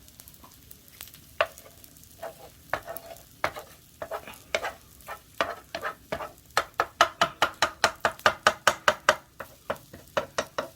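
A utensil striking and scraping a frying pan while stirring the egg, in scattered strokes at first, then about five quick, ringing strokes a second from about two-thirds of the way in.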